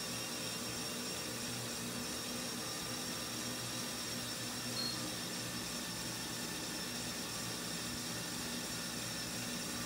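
A treadmill belt and motor running steadily, with the electric motors of two Lego Technic Powered Up cars driving on it, make a continuous whirring hum with a few steady whine tones. A short high beep sounds about five seconds in.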